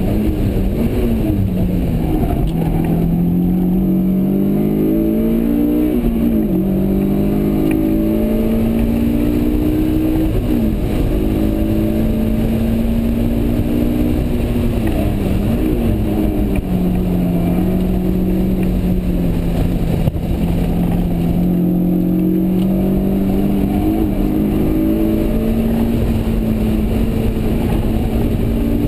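2004 Honda S2000's 2.2-litre four-cylinder engine heard from inside the cabin under hard track driving, its pitch climbing and falling repeatedly through gear changes and corners, with a steady stretch in the middle.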